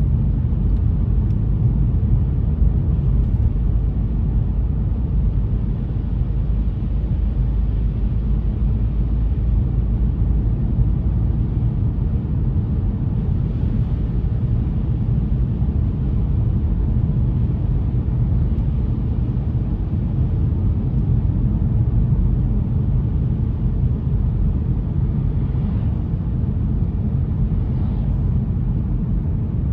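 Car driving on a wet road: a steady low rumble of engine and road noise.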